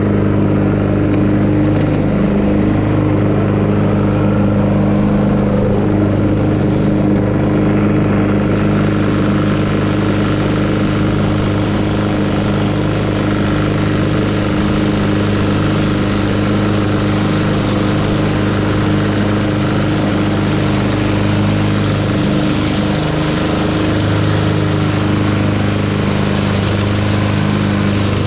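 An engine running steadily at an even speed. A higher hiss joins it about eight seconds in.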